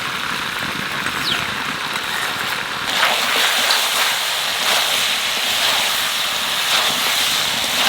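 Country chicken sizzling as it fries in oil in a pan, a steady hiss that grows louder about three seconds in as the fried ground spice paste goes in.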